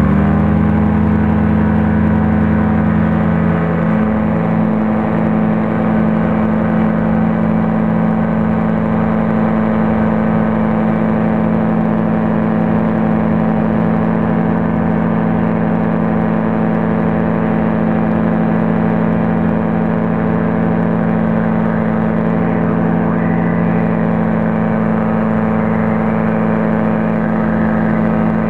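Rotax 503 two-stroke engine of an Excalibur light aircraft settling at full takeoff power and then running steadily at a constant high pitch. A low rumble underneath fades out about three seconds in.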